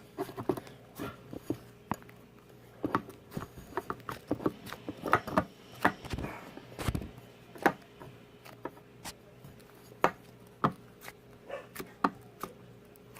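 Slime being squished and poked by hand in a bowl, making irregular small clicks and sticky pops, several a second at times.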